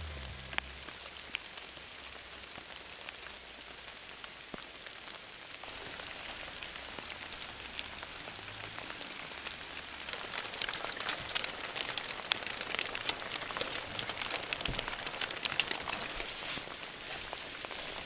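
Steady rain falling, with many individual drops ticking close by; it grows heavier from about ten seconds in.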